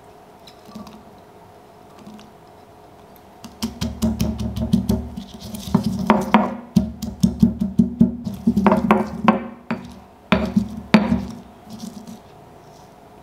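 Granite pestle pounding red chillies and red onion in a granite mortar: a fast run of heavy thuds and crunches, several a second. It starts a few seconds in and stops shortly before the end.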